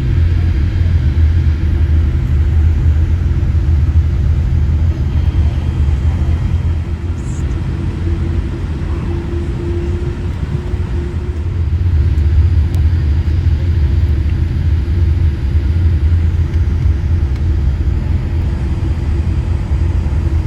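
Steady low rumble of engine and airframe noise inside the cabin of a Boeing 787-8 airliner. It eases slightly about six seconds in and builds again around twelve seconds.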